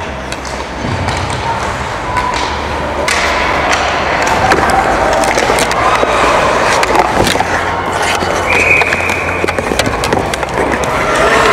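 Ice hockey play on a rink: skate blades scraping and carving the ice, with frequent sharp clacks of sticks and puck.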